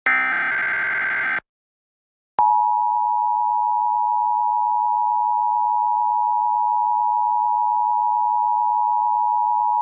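Emergency Alert System test tones: the last burst of the SAME digital header, a warbling data buzz lasting about a second and a half, then a second of silence, then the EAS attention signal, the steady two-tone 853 and 960 Hz beep that comes before the spoken alert.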